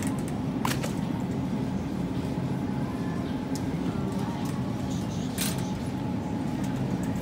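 Steady low hum and rumble of supermarket ambience along a refrigerated case, with two sharp clicks, one under a second in and another about five seconds in.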